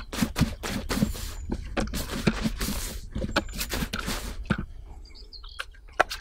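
Hand trigger spray bottle misting water onto dry groundbait soil in a plastic bucket: a series of short spray hisses over the first four seconds or so, then quieter.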